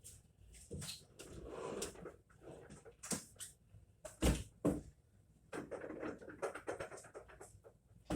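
Irregular knocks, clunks and scrapes of a washing machine being handled and shifted.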